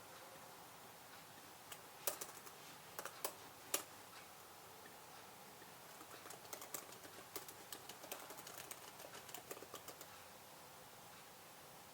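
Computer keyboard being typed on quietly: a few separate keystrokes in the first few seconds, then a quicker run of typing from about six to ten seconds in, then it stops.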